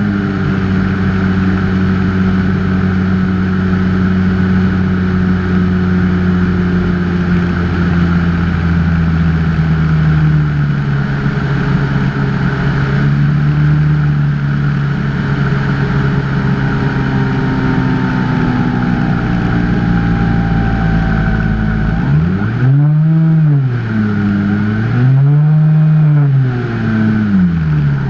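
Electric motor and propeller of a Skyhunter FPV plane, heard through its onboard camera with wind noise: a steady drone, then near the end the pitch rises and falls twice as the throttle is worked.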